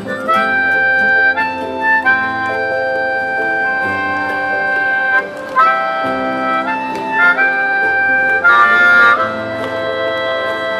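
Harmonica playing a melody of held notes over strummed acoustic guitars in a live band.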